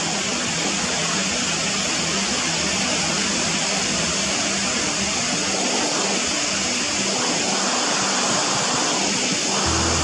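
Steady rush of surf breaking on the shore, with soft background music underneath.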